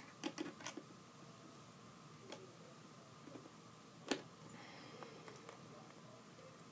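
Screwdriver turning a facemask clip screw on a football helmet: faint scattered clicks and small taps, several close together at the start and one sharper click about four seconds in.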